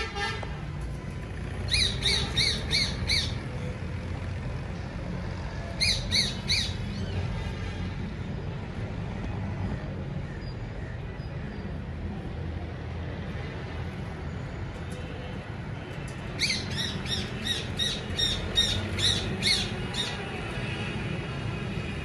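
Rose-ringed parakeet calling in runs of short, sharp repeated screeches. About five come near two seconds in, three around six seconds, and a longer run of a dozen or so from about sixteen to twenty seconds, over a steady low background rumble.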